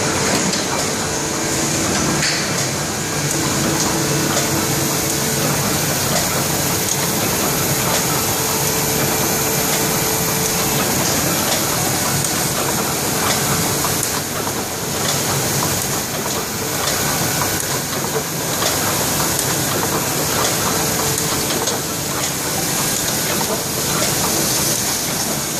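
Waite & Saville steel-engraving printing press running: a steady, dense mechanical clatter of the press and its sheet feed, with a faint hum underneath.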